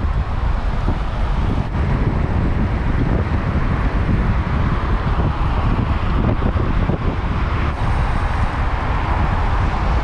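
Steady wind rush buffeting the microphone of a camera carried on a moving road bicycle.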